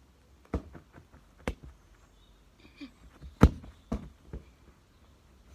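A football being kicked in play: a handful of sharp thuds, the loudest about three and a half seconds in.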